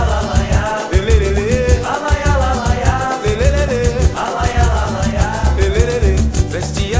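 Cape Verdean batuku music: a sung melody in short phrases over a fast, even percussion rhythm with a heavy low beat.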